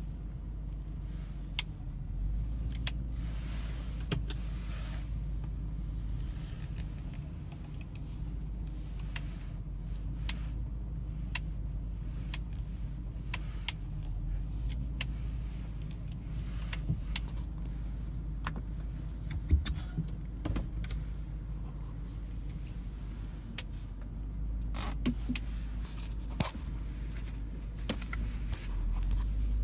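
Car engine running with a steady low rumble, with irregular sharp clicks and ticks over it: the strange noise taken for a sign of an engine problem.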